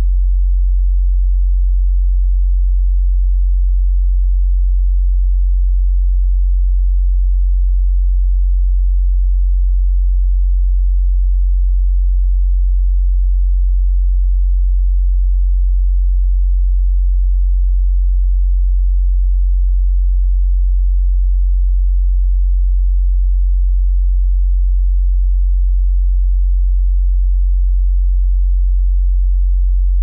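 A single steady, very low electronic sine tone at about 45.6 Hz, the note F♯1/G♭1.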